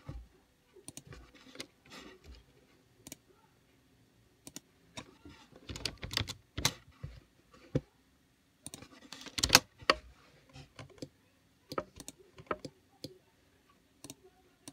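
Computer keyboard keystrokes and mouse clicks, coming in irregular bursts with pauses between them. The loudest clusters come about six and nine and a half seconds in.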